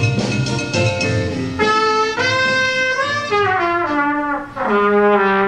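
Trumpet playing a solo melody: a run of notes stepping down in pitch, a brief break, then one long held note near the end.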